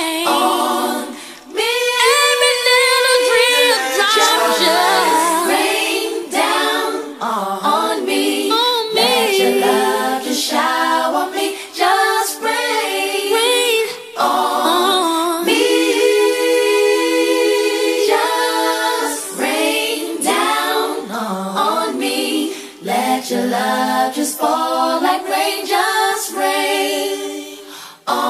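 Unaccompanied female R&B vocal group singing in layered harmony, with wavering melismatic runs over long held chords and no instruments.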